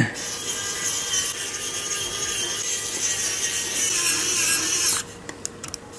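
Cordless electric precision screwdriver running steadily for about five seconds as it drives a small screw into a laptop's base, then cutting off suddenly; a few light clicks follow.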